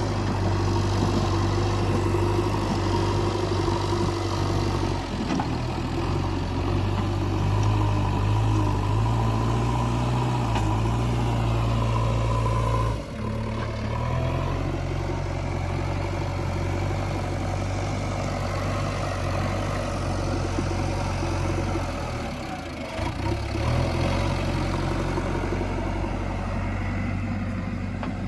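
JCB 3DX Eco Xcellence backhoe loader's diesel engine running steadily. The engine note drops sharply about 13 seconds in, then settles at a new steady pitch, with another brief dip near 23 seconds as the load changes.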